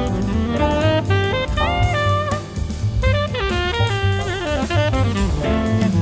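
Jazz song played back from a cassette recorded on a Nakamichi 680ZX deck with its original uPD4066 audio switches: an instrumental passage with a bending melody line over drum kit and bass.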